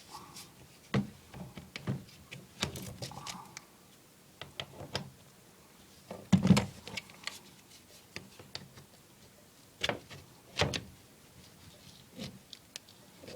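Scattered knocks, clicks and clatter of tools and pipe parts being handled during hands-on plumbing work, irregular with pauses between. The loudest knocks come about halfway through and again a few seconds before the end.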